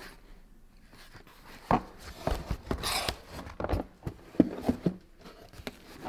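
Cardboard shipping box being handled and opened by hand: a series of sharp knocks and taps, with a short scraping rustle of cardboard about three seconds in.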